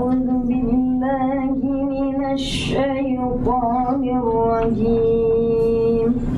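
A woman's voice chanting long, held melodic notes in the ornamented style of Quranic tajweed recitation, with a few melodic turns between the held tones.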